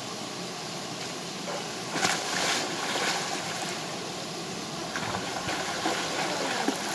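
A small waterfall and stream rushing steadily, with a swimmer's kicks and strokes splashing through the pool. The loudest splashes come about two seconds in, with more around five seconds in.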